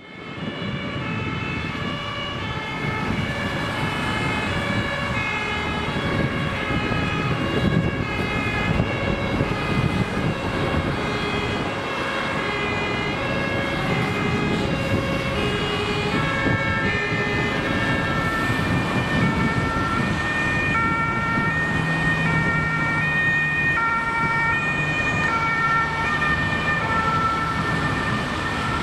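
German two-tone emergency sirens (Martinshorn) on ambulances sounding, each stepping back and forth between a high and a low note. Several sirens overlap out of step at different pitches, over road traffic and a running engine.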